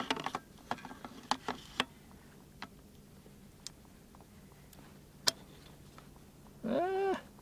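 Light metallic clicks and ticks of an SVD-type side mount being handled on a rifle's dovetail side rail while its clamp tension is being checked: a quick cluster in the first two seconds, then a few scattered single clicks. Near the end a short hummed "hmm" from the man.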